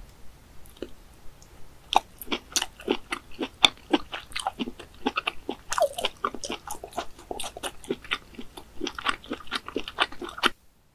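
Close-miked chewing of cooked snail meat: a dense run of quick clicking mouth sounds that begins about two seconds in and cuts off suddenly near the end.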